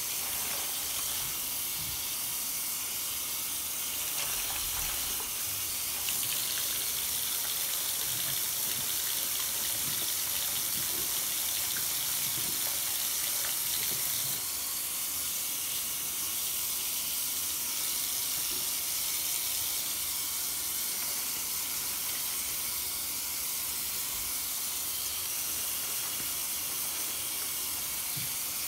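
Faucet water running steadily into a sink while a soapy sponge is squeezed and rinsed under the stream, with soft wet squishes from the sponge.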